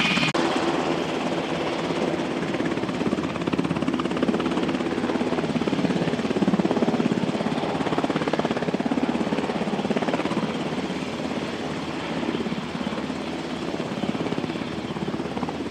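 UH-60 Black Hawk helicopter hovering low, its rotor beating steadily over the engine noise.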